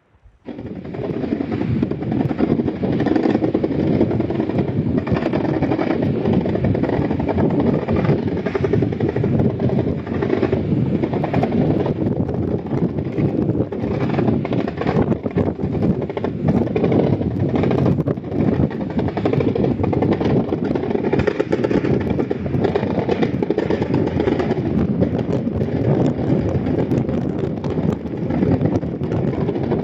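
Heavy vehicle engine running steadily, a loud dense low rumble that starts suddenly and holds without a break.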